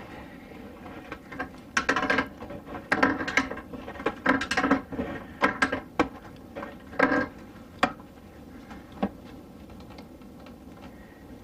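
Wrench tightening the telescoping dinette table stand: short bursts of metallic clicking every second or so, stopping about eight seconds in with one last click.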